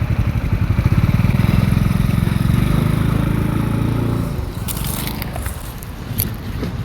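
A small motorcycle engine running with a low pulsing hum, fading away about four seconds in. Then a few short, crisp crackles and clicks near the end.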